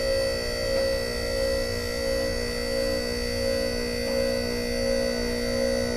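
A QuickJack portable car lift's electric hydraulic pump runs with a steady hum and whir, raising the car on its lifting frames toward the second safety stop.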